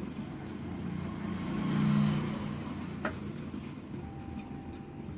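A low rumble that swells to a peak about two seconds in and then fades, with one sharp click about three seconds in.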